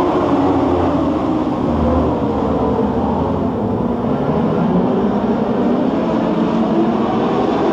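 A field of dwarf race cars running together in a bunched pack on a dirt oval, many engines droning at once, as the field lines up for a restart.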